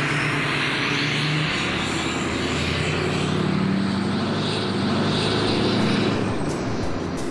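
School bus engine running as the bus pulls away, a steady drone whose note rises about two and a half seconds in.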